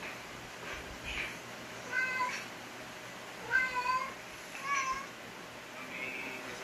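Domestic cat meowing three times, short calls about two, three and a half and five seconds in, the middle one the loudest.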